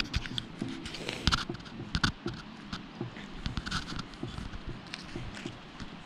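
Footsteps on ground covered with dry pine needles: irregular crackles, clicks and soft thuds.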